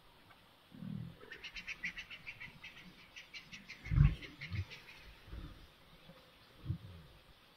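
Short low grunts and growls from two lions holding a warthog in a suffocating bite; the loudest comes about four seconds in. Above them a bird gives a fast rattling series of high notes, about seven a second, for some three and a half seconds.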